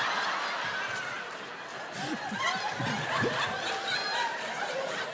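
Theatre audience laughing; the laughter thins out about a second and a half in, then picks up again with many scattered laughs.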